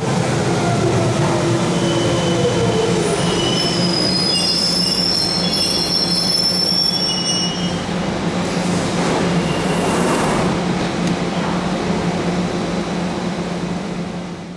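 London Underground train running on the track, with a steady low hum and the whine of its motors falling in pitch over the first few seconds as it slows. From about two seconds in, high wheel squeal rings out for several seconds, then fades while the train keeps running.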